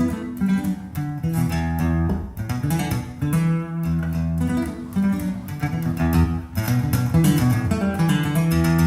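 Instrumental stretch of a song with guitars over held bass notes and a steady beat, played through Canton Ergo 90 DC bookshelf loudspeakers and picked up by a microphone in the room.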